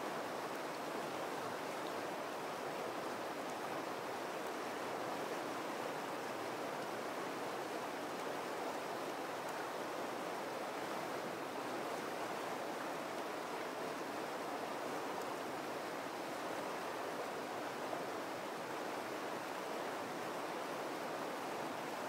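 River rapids running over rocks: a steady, unbroken rush of white water.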